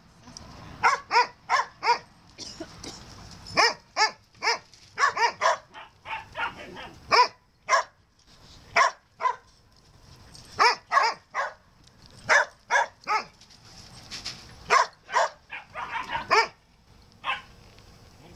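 Koolie and border collie dogs barking in play: short, sharp barks, mostly in quick runs of two to five, with brief pauses between the runs.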